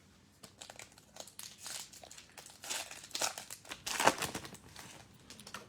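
Crinkling of a plastic-foil trading-card pack wrapper being handled and torn open, an irregular run of crackles that starts about half a second in and peaks twice in the second half.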